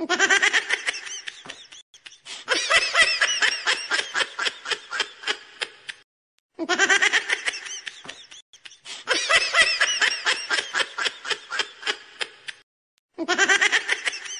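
High-pitched laughter, a rapid run of 'ha-ha' pulses about four or five a second, in blocks that stop and start abruptly with short gaps; the same laughing run repeats about every six and a half seconds, as a looped laugh sound effect does.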